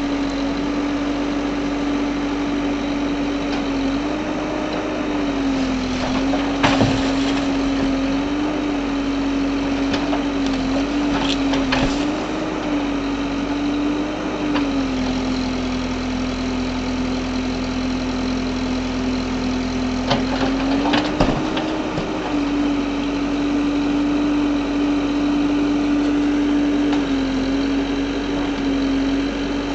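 Engine of a piece of demolition machinery running steadily, its pitch dipping and rising slightly as load comes and goes, with a few short knocks or clatters about a quarter, two fifths and two thirds of the way through.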